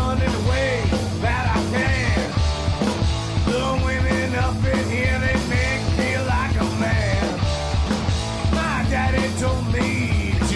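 Background rock music with a singing voice and a steady beat.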